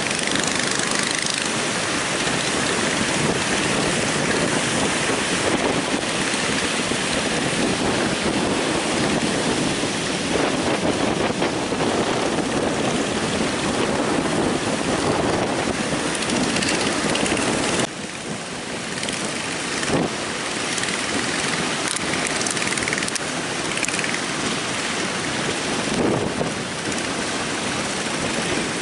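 Heavy surf breaking and rushing on the beach, with strong wind buffeting the microphone. The noise drops suddenly about two-thirds of the way through, then carries on a little quieter.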